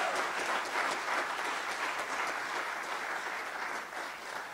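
Congregation applauding, an even patter of many hands clapping that slowly dies down toward the end.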